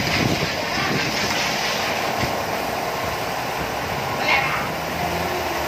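Garden hose spraying water onto a foam-covered car, a steady hiss of water on the soapy bodywork.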